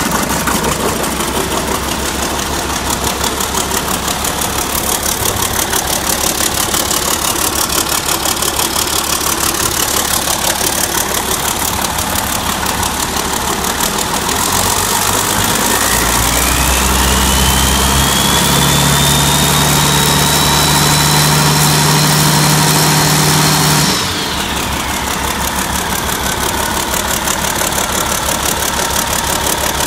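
1998 International DT466E inline-six turbo diesel running on a test stand: steady idle, then about halfway through it is revved up and held for several seconds before dropping suddenly back to idle. A turbocharger whine rises with the revs, holds high, and winds down slowly after the throttle drops; the engine runs smoothly.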